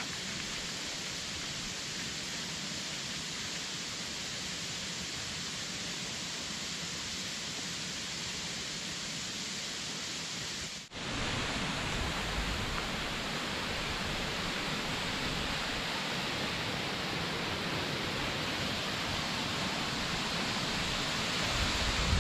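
Steady rush of water falling at a waterfall. About eleven seconds in it cuts abruptly to a louder, brighter rush.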